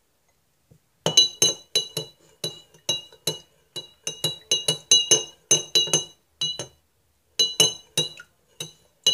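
Metal spoon stirring in a glass tumbler of tea, clinking against the glass over and over, about three ringing clinks a second. The clinks start about a second in, with a brief pause about two-thirds of the way through.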